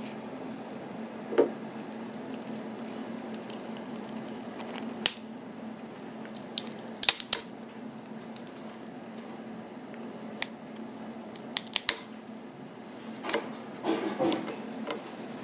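Metal spoon clicking and scraping against a cooked snow crab shell as the meat is pried out: scattered sharp clicks and cracks, some in quick pairs, over a steady low hum.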